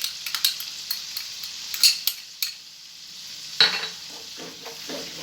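Cooking utensil clicking and scraping against a frying pan as freshly added chopped herbs and garlic are stirred into a hot, sizzling seafood sauce. A louder clack comes about three and a half seconds in, followed by steady sizzling.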